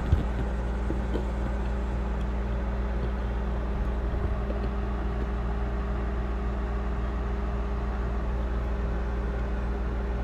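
Steady hum of RV rooftop air conditioners running, a low even drone.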